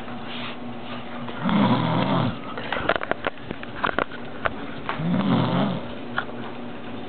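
A woman snoring heavily: two long, low snores about three and a half seconds apart, with a run of sharp clicks between them.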